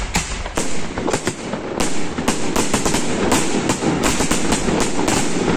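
Fireworks display: a rapid, irregular barrage of aerial bursts and launch reports, several bangs a second and overlapping, over a continuous noisy crackle.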